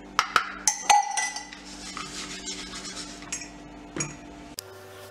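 Steel kitchen knife clinking and knocking against a wooden cutting board while jackfruit pieces are handled: four sharp clinks with a short metallic ring in the first second, then one more knock about four seconds in.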